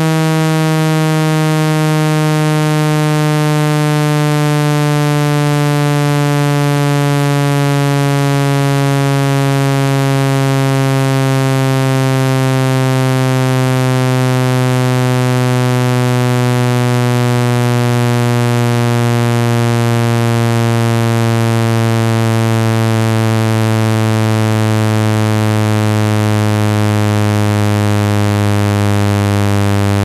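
Synthesized water-eject tone, played to shake water out of a phone's charging port and speaker. It is a loud, buzzy low tone that falls slowly and steadily in pitch.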